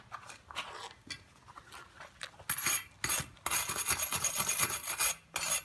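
Scraping on steel in a series of harsh strokes, one of them longer, preceded by light clicks and knocks of metal being handled.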